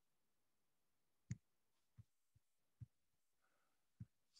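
Near silence broken by about five separate sharp clicks from computer use; the loudest comes a little over a second in.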